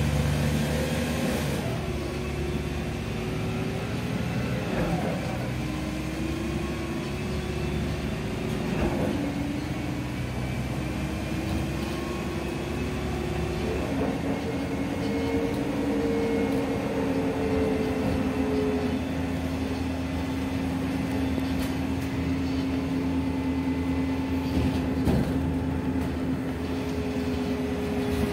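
Interior of a Volgabus-5270.G4 city bus under way: a steady low engine and drivetrain hum with whining tones that climb in steps during the first half, as the bus picks up speed through its gears, then hold steady while it cruises. A few light rattles and knocks near the end.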